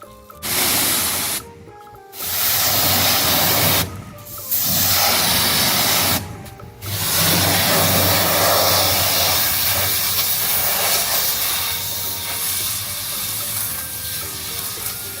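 Pressure washer spraying water in four blasts with short gaps, the last one running on for about eight seconds.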